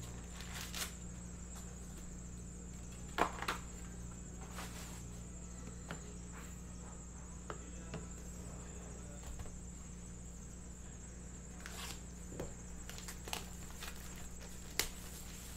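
Foil trading-card packs being handled and set down on a table: scattered light crinkles and taps, the sharpest a few seconds in and again near the end, over a steady low hum.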